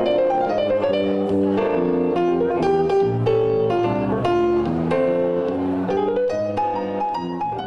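Live jazz instrumental passage: a Fodera electric bass plays quick, melodic plucked lines over piano accompaniment.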